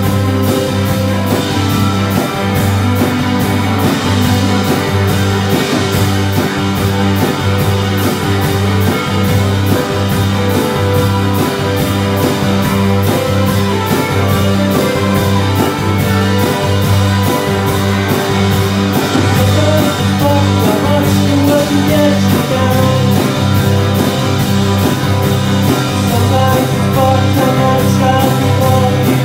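Live rock band playing: electric guitar and bass guitar over a drum kit keeping a steady beat.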